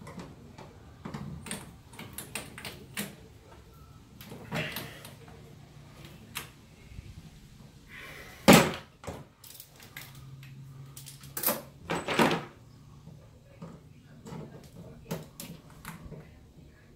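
Hand tools clicking and knocking against metal engine parts, irregular and sporadic, with the loudest knock about eight seconds in and a few more strong knocks a few seconds later.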